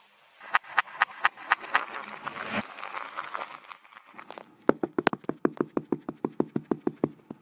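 Sharp clicks over a hiss for about two seconds, then, after a short lull, a quick, even run of hollow knocks or taps, several a second.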